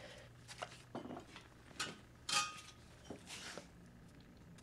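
Light clinks and short scrapes of metal siren motor parts being handled, about five brief sounds spread out, the longest a scrape about halfway through.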